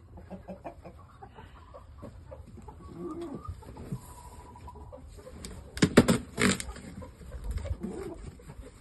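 Game chickens clucking and calling, with scattered small knocks and a few sharp, loud sounds about six seconds in.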